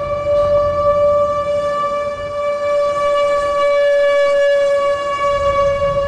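Outdoor tornado warning siren sounding a steady single-pitched wail, signalling a tornado warning for the approaching supercell.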